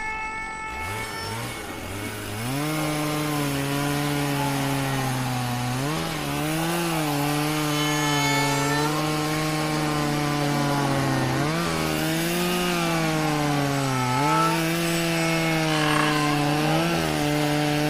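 Two-stroke chainsaw engine revving, its pitch stepping and bending up and down, starting about two and a half seconds in.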